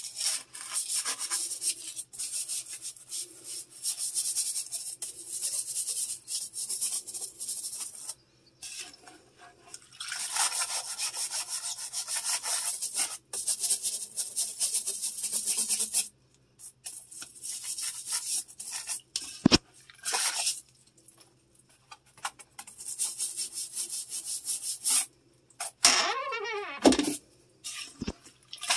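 Toilet brush scrubbing the inside of a toilet bowl in bursts of quick, scratchy strokes with short pauses between. In the last ten seconds there are a few sharp knocks.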